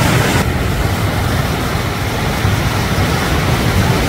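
Steady rushing of sea surf mixed with wind buffeting the microphone.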